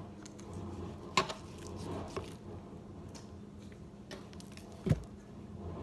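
Kitchen knife cutting raw bone-in pork shoulder butt, with a few sharp knocks of the blade or meat on the cutting surface, the loudest about a second in and near the end.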